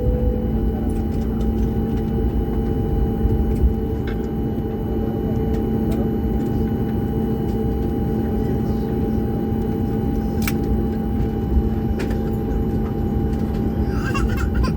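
Airliner cabin noise: a steady low rumble of engines and airflow with constant humming tones and a few faint clicks.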